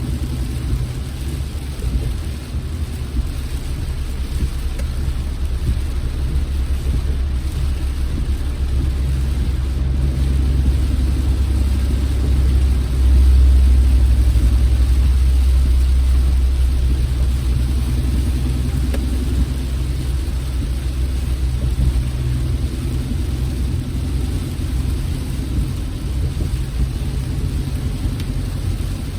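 Car driving: a steady low rumble of engine and road noise, swelling louder for a few seconds about midway.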